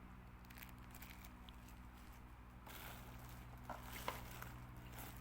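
Faint handling noises, a few light clicks near the end, over a steady low electrical hum.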